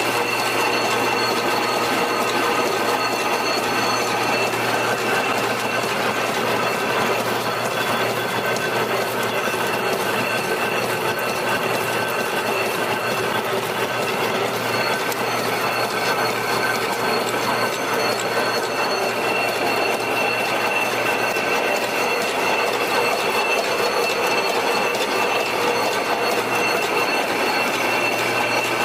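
High-speed reverse-twist barbed wire machine running: a steady, fast mechanical clatter of its gears and barb-wrapping head, with a constant high whine running through it.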